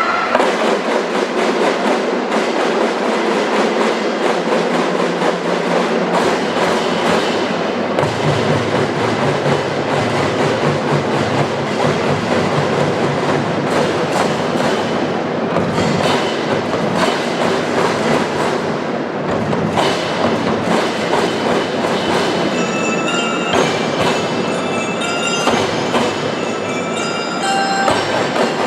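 Children's marching drum band playing: a dense, steady pattern of snare and marching drums, with deeper drums joining about eight seconds in. Short high bell-like notes sound near the end.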